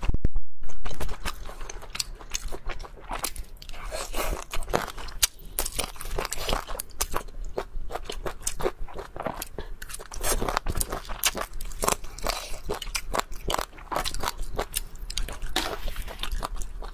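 A person biting and chewing crunchy food close to the microphone, with many sharp, irregular crunches. A loud, dull low thud comes in the first second.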